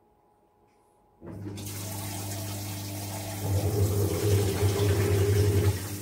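IFB top-load washing machine's jet spray coming on about a second in during the rinse cycle: water spraying and splashing into the tub over a steady low motor hum, turning louder with a pulsing hum about halfway through.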